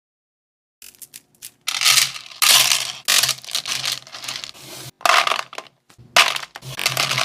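A mass of small candies pouring and clattering into a container, a dense rattle of many tiny impacts. It starts about a second in and breaks off briefly twice in the second half before pouring on.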